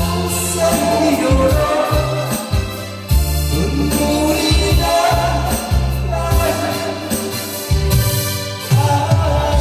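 Music: a Korean song with a sung melody over band accompaniment and a repeating bass line.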